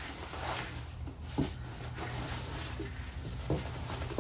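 Nylon backpack rustling and crinkling as a rolled towel is stuffed into it, with a few soft knocks, over a steady low hum.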